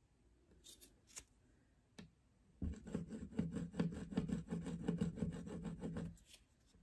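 A small piece of aluminum scraped quickly back and forth across a strip of zinc sheet, a run of rasping scratch strokes, several a second, starting about two and a half seconds in and stopping about a second before the end.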